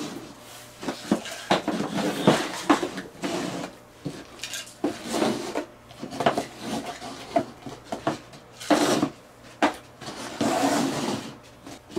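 Cup noodle containers being slid and shuffled around a tabletop: a run of irregular scrapes and light knocks of the cups on the table.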